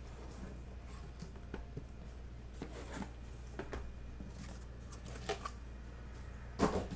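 A cardboard case being handled and moved about: scattered rustles, scrapes and light knocks over a steady low hum, the loudest knock just before the end.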